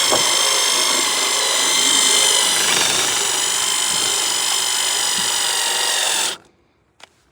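Handheld power gun spinning a speed chain binder tight: a steady motor whine that dips briefly in pitch about three seconds in as it loads up, then cuts off about six seconds in.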